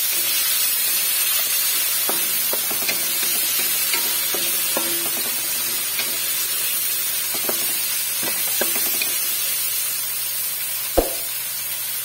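Large whole shrimp sizzling in butter and oil in a metal wok with sautéed garlic, onion and tomato. A steady frying hiss runs throughout, with scattered taps and scrapes of a utensil on the pan and one louder knock near the end.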